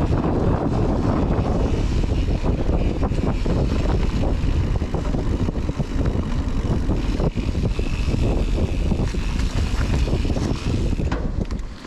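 Mountain bike ridden along a trail, heard from a GoPro on the rider's body armour: wind buffeting the microphone and tyres rumbling over the dirt, with frequent short clatters and knocks from the bike over rough ground.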